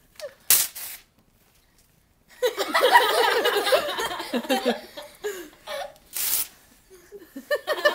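A sheet of lined paper being torn, once about half a second in and again around six seconds in. Between the tears and near the end, a woman laughs loudly.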